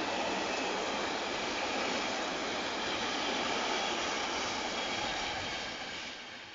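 Freight train of empty container flat wagons rolling past on the rails, a steady noise of wheels and wagons. It fades near the end as the last wagons draw away.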